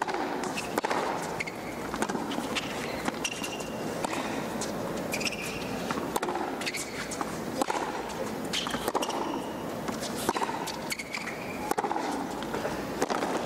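A hard-court tennis rally: sharp racket-on-ball hits roughly once a second, with short high sneaker squeaks on the court surface, over a low crowd murmur.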